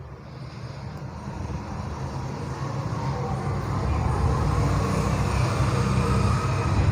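Low rumble of motor-vehicle traffic, swelling over the first four seconds and then holding steady.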